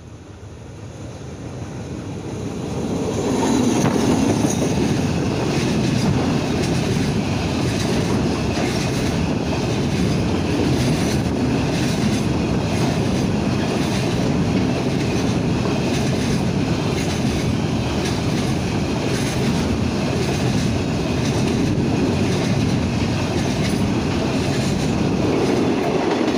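Diesel-hauled container freight train passing close by on the main line: the locomotive grows loud over the first few seconds, then a long steady rumble of container wagons with the regular clatter of wheels over the rail joints.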